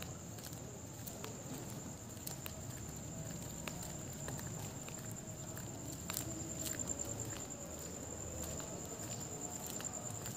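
Faint night-street ambience: a steady, high-pitched insect trill, with soft, irregular footsteps and small clicks on the road.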